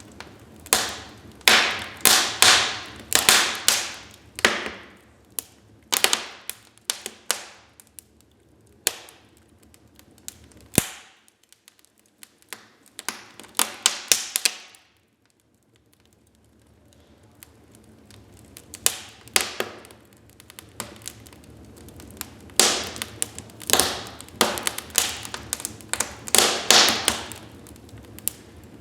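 Wood fire crackling in a fireplace: sharp pops and snaps of burning logs in irregular clusters, easing to a quiet lull about halfway through before picking up again.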